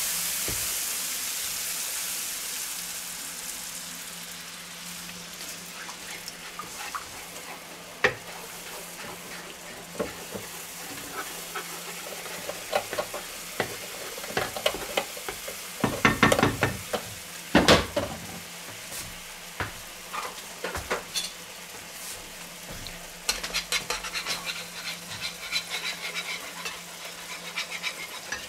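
A roux-based milk and cream sauce sizzles in a hot pan, the hiss fading over the first few seconds after the milk goes in. A wooden spoon stirs and scrapes across the pan bottom with scattered clicks and knocks, a louder flurry about two-thirds of the way through, and quick repeated scraping near the end.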